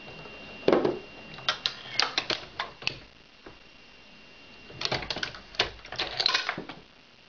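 Hornady 366 Auto progressive shotshell reloading press clicking and clacking as it is worked while seating slugs into shells: a run of sharp clicks through the first three seconds, a quieter gap, then another cluster of clicks from about five to seven seconds in.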